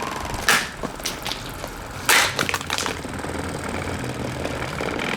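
Cheap, brittle plastic of a Windmere table fan being struck and smashed: two heavy blows, about half a second and two seconds in, with lighter knocks and cracks between.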